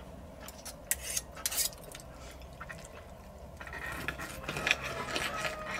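Knife and fork on a plate while a steak is cut: a few clinks in the first two seconds, then a longer stretch of scraping.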